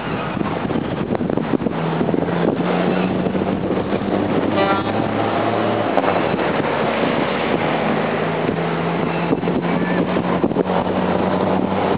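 Steady low engine drone from a heavy vehicle or aircraft, stepping up in loudness about two seconds in, with wind buffeting the microphone. A brief high tone sounds about four and a half seconds in.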